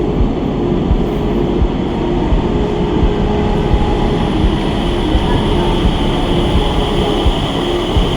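Agra Metro train running, heard from inside the car: a steady rumble with a faint steady whine above it.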